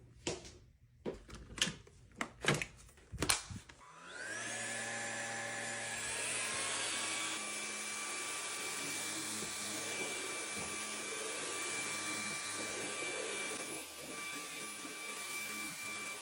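Laresar Ultra 7 cordless stick vacuum: a few clicks and knocks, then about four seconds in the motor starts up with a rising whine and runs steadily, vacuuming up spilled rice. It drops slightly in level near the end.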